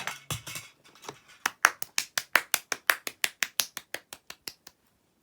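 Rapid run of light plastic clicks from a toy play set mechanism, about six a second, going on for about four seconds and fading out before stopping.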